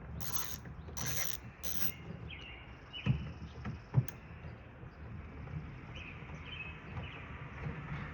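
Metal sliding-door lock hardware being handled and worked on: clicking and rasping at first, then two sharp knocks about three and four seconds in.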